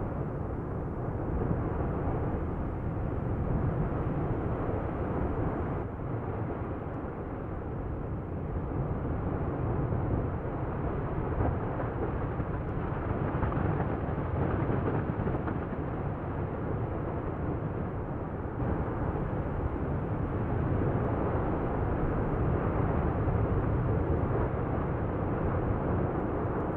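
Low, steady rumble of the Fagradalsfjall volcano's lava fountain erupting from its vent, swelling and easing every few seconds.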